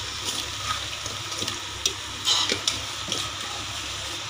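Raw mutton pieces dropped by hand into hot onion-tomato masala in a pressure cooker, sizzling steadily, with a few louder short bursts as pieces land.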